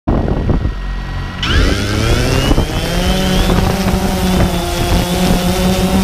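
DJI Phantom 2 quadcopter's motors spinning up: about one and a half seconds in, their whine rises in pitch over a low rumble and then settles into a steady multi-tone hum, with wind on the microphone.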